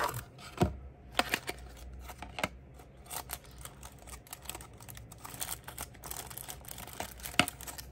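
Clear plastic packaging crackling and clicking as a die-cast model car is slid out of its plastic sleeve and lifted from its plastic tray: scattered sharp clicks, a few of them louder.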